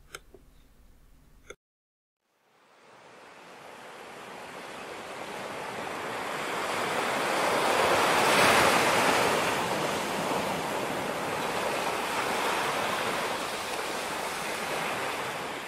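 Rushing water of a waterfall: a steady hiss that fades in after a brief silence, swells to its loudest about eight seconds in, then holds steady.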